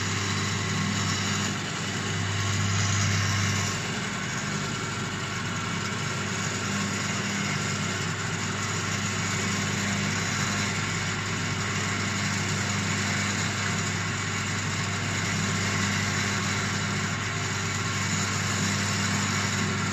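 DZM-5 pill making machine running: its motor and grooved pill-forming rollers give a steady mechanical hum with a low drone, a little louder for a moment about two to four seconds in.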